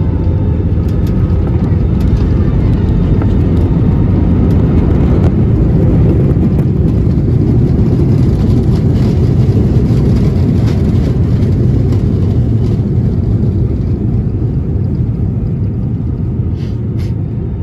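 Jet airliner's engines heard from inside the cabin, from a window seat over the wing: a loud, steady rumble that eases slightly near the end.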